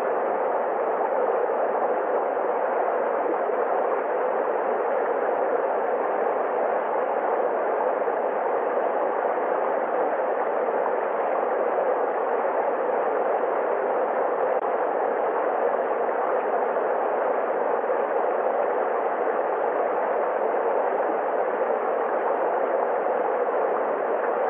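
Flowing river water: a steady, even rushing that does not change.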